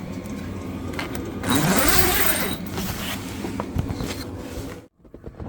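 Snowmobile engine running, revved up and back down about a second and a half in.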